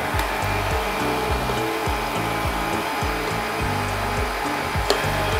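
Electric stand mixer running steadily, beating butter and sugar, under background music. A single sharp click near the end.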